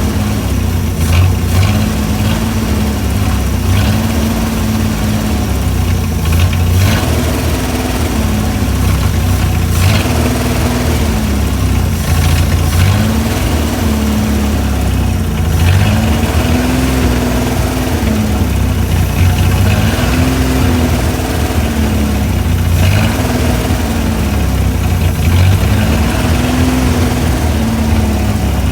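Chrysler Hemi 265 straight-six engine idling, its speed rising and falling evenly about every two and a half seconds: the idle is not yet settled.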